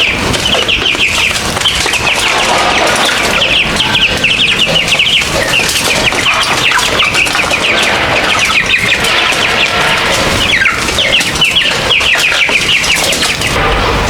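Many chickens calling at once: a dense, steady chorus of short, high, falling peeps overlapping one another, over a constant rustling background.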